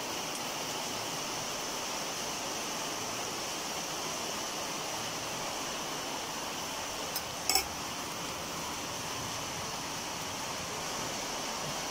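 A steady hiss, with two short metal clinks of steel cookware a little after seven seconds in.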